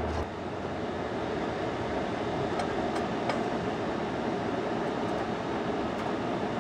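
Steady rushing background noise, with a few faint light clicks about halfway through as the stone pipe is set down on the coiled metal stove element.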